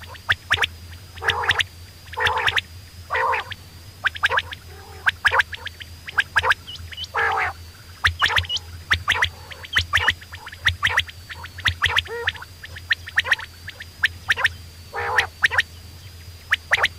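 Quail calling repeatedly: quick sharp notes mixed with several longer calls of about half a second each, over a faint steady high whine and low hum.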